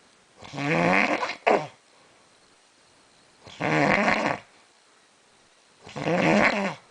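A man snoring loudly in his sleep: three long snores about two and a half seconds apart, the first ending in a short sharp snort.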